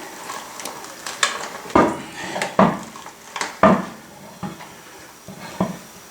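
Metal clanks and knocks from tools and hardware being handled during a tractor wheel-spacer install: several irregular strikes, the loudest in the middle.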